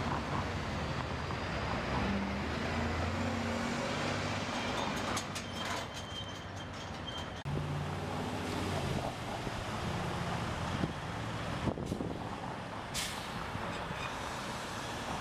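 Diesel engines of semi-trucks running as tractor-trailers drive through a roundabout, with a low drone whose pitch shifts, over tyre and road noise. Near the end a red semi-truck tractor passes close by, and there is a brief hiss.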